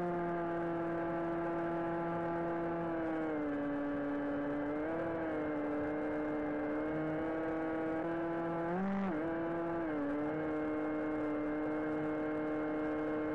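Electric motor and propeller of an AtomRC Dolphin flying wing in flight, heard from its onboard camera as a steady whine. The pitch drops as the throttle eases about three seconds in, climbs back a second and a half later, and surges briefly near the nine-second mark before settling again.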